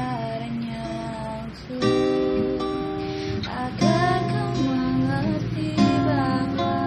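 Acoustic guitar being strummed in chords, with a voice singing along.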